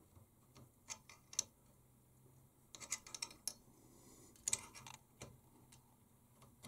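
Light metallic clicks and taps of two open-ended spanners on a Prusa i3 MK3S hot end: a 16 mm spanner holds the heater block while a 7 mm spanner works the nozzle loose. The clicks are scattered and bunch up around the middle, over a faint steady hum.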